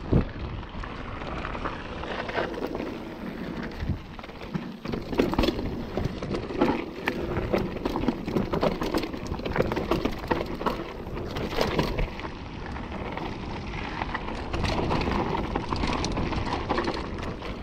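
Mountain bike riding down a loose, rocky gravel trail: tyres crunching over stones and the bike rattling with frequent knocks, with wind noise on the microphone.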